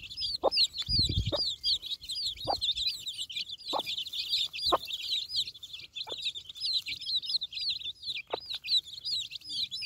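A flock of young chicks peeping constantly: a dense chorus of high, quick chirps. A broody mother hen clucks among them, with short low clucks every second or so.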